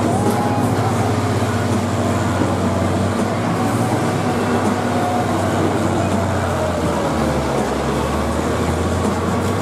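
Several John Deere combines' diesel engines running together under load, a steady low drone with faint whining notes that rise and fall.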